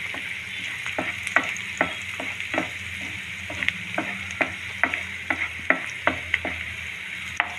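Chopped onions sizzling in hot oil in a non-stick frying pan, being browned, while a spatula stirs and scrapes them with light clicks against the pan about two to three times a second.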